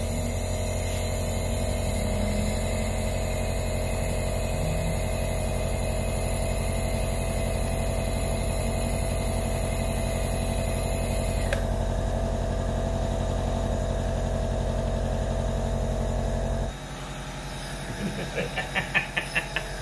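Compressor nebulizer running with a steady, even hum while aerosolizing medicine through a face mask; the hum cuts off abruptly about three seconds before the end as the machine is switched off. A quick run of short, regular sounds follows near the end.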